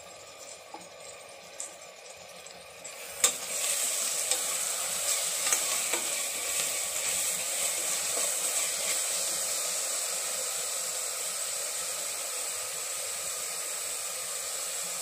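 Onions, green chillies, curry leaves and ground coconut-spice paste sizzling in oil and ghee in a stainless-steel pressure cooker, stirred with a steel spoon that clinks and scrapes against the pan. The sizzle starts suddenly with a clank about three seconds in, then runs steady, easing a little toward the end.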